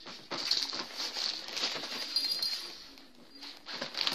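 Cats scrambling on and into a fabric pop-up play tunnel: the crinkly nylon rustles and crackles in quick bursts, with a light metallic jingle among it, and eases briefly about three seconds in.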